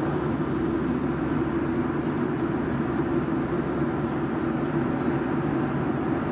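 Steady in-flight cabin noise of a Boeing 757-200 with Rolls-Royce RB211 engines, heard from inside the passenger cabin: engine and airflow noise as an even low drone with a fainter hiss above it.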